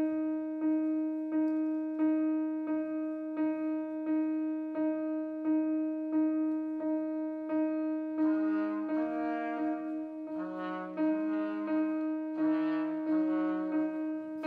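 Small jazz ensemble playing. A single note repeats steadily, about once every 0.7 s, for the first eight seconds. Then trumpet and clarinet come in together with a melody over it.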